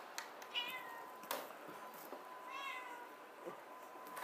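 A cat stuck in a cramped hidden space meowing twice, two short calls about two seconds apart, with a few sharp clicks in between.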